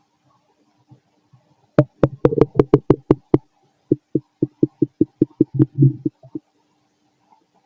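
Human stomach and gut gurgling while digesting: a quick run of sharp, clicking pops, about six a second, starts nearly two seconds in. It is followed by a slower run of duller, lower pops, about four a second, that stops about six seconds in.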